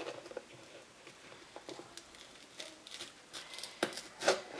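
Faint scattered clicks and soft squishy taps from hands and a knife working fresh banana peppers that have been slit open, with two sharper clicks near the end.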